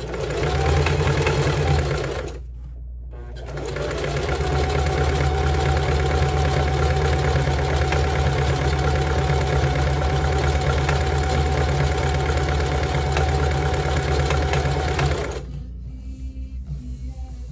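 Singer Heavy Duty sewing machine running, stitching through climbing rope, with a steady motor whine. It stops briefly about two seconds in, then runs steadily for about twelve seconds and stops near the end.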